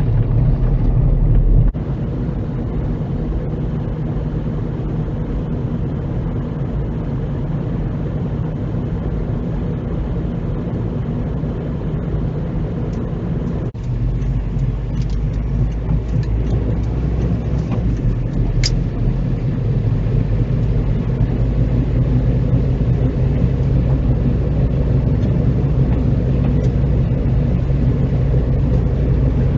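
A car's engine and tyre noise heard from inside the moving car's cabin, a steady low hum that changes abruptly about two seconds in and again about halfway through. A brief high squeak comes a little past the middle.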